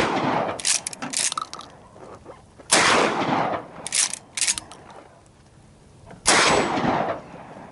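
Rifle shots: two loud shots about three and a half seconds apart, each trailing off in about a second of echo, with a few fainter sharp cracks between them.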